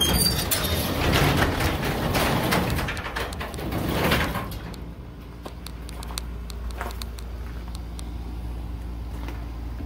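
Old sectional garage door rumbling and rattling as it is raised along its steel tracks in a shipping container, for about four and a half seconds. A steady low hum with a few light clicks follows.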